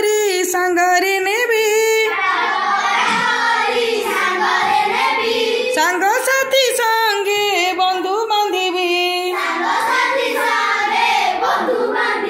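Children singing an Odia children's rhyme in a sing-song recitation, line after line with short breaks between phrases.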